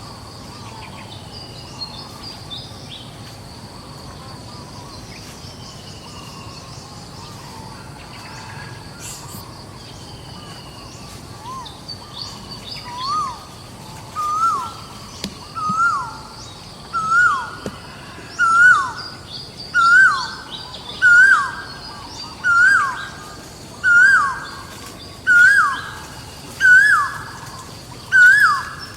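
Outdoor natural ambience with a steady high hum and faint bird chirps; about twelve seconds in, a bird starts a series of loud whistled notes, each rising then falling, about one every second and a half, growing louder as it goes.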